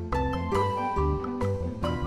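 Background music: a melody of struck notes, a few a second, over a low bass line.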